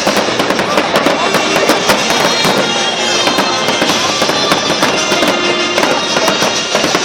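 Fireworks crackling and popping in rapid, dense succession over music.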